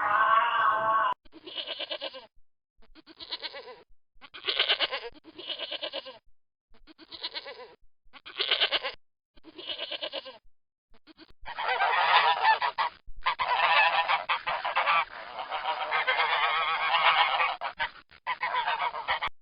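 Geese honking: about seven separate calls with short pauses, then continuous overlapping honking from a group from about halfway through.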